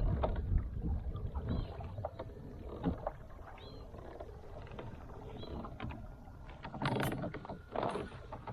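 Kayak on the water: scattered knocks and rustles of handling in the boat, with water sounds and two louder splashy bursts near the end.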